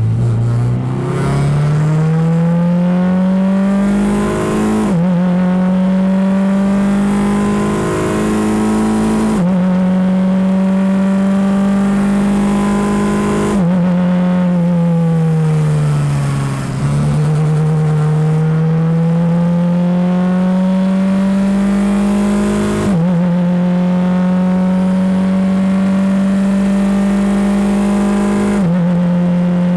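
Formula 4 single-seater's engine pulling hard through the gears: the pitch climbs steadily and drops sharply at each upshift. About halfway through, the pitch falls for a few seconds as the car slows for a corner, then climbs again through further upshifts.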